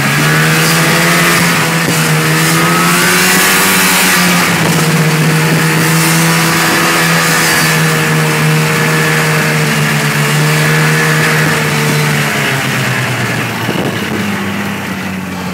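Snowmobile engine running at a steady cruising speed under a steady hiss. It eases off about twelve seconds in and picks up again near the end.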